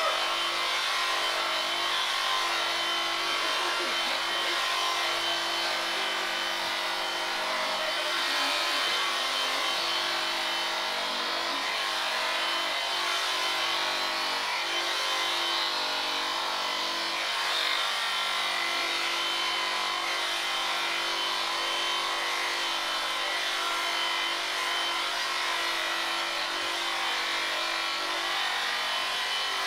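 Electric sheep-shearing handpiece running continuously as it cuts through a sheep's fleece: a steady motor hum and buzz.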